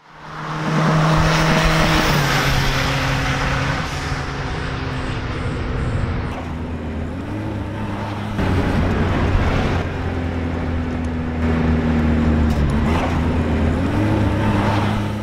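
Turbocharged 1.0-litre four-cylinder engine of a Chevrolet Corsa running under way, mostly at steady revs, with two short rises in pitch about halfway through and near the end.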